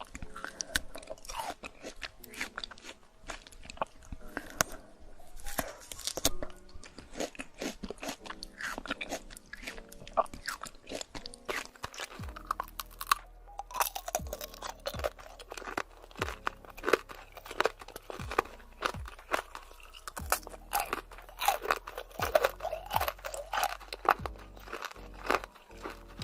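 Close-up crunching and chewing of fresh fruit: many quick, crisp bites and chews in an irregular run. About halfway through, background music with a low, regular beat comes in underneath.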